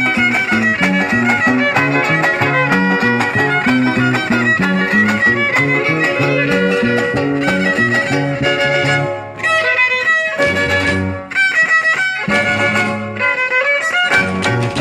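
Huasteco trio playing a huapango, instrumental: the violin plays a fast melody over strummed guitar accompaniment with a rhythmic stepping bass line.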